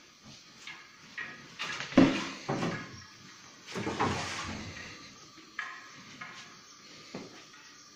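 Sheet-metal baking trays of prosphora loaves clattering and knocking as they are lifted and moved, with irregular knocks and scrapes. The loudest knock comes about two seconds in.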